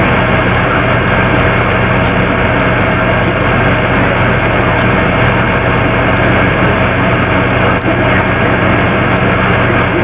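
Loud, steady droning noise with a low electrical hum beneath it, broken once by a brief click about three-quarters of the way through.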